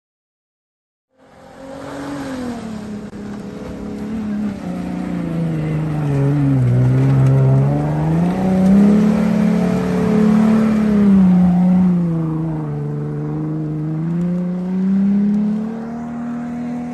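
Off-road 4x4 engine revving, its pitch rising and falling again and again over several seconds. It starts abruptly about a second in.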